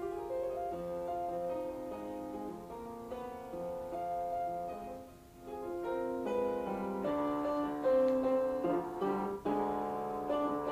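Background piano music: a melody of changing notes that starts suddenly.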